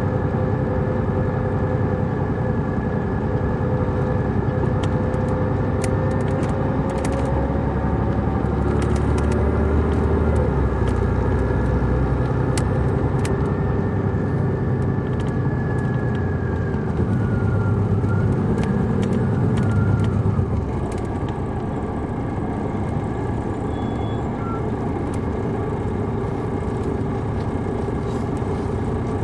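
Detroit Diesel Series 60 engine of a 2002 MCI D4000 coach, heard from inside the moving bus, its note shifting in pitch. About 20 seconds in, the engine note drops and gets quieter, settling to a lower steady drone, with scattered light clicks throughout.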